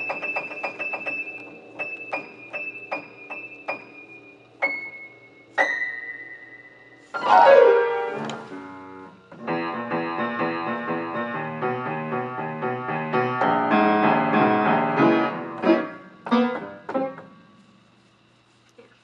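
Piano keyboard played informally: fast repeated notes, then a few single notes, a downward glissando about seven seconds in, then a busy run of notes and chords that breaks off with a few last notes and fades out near the end.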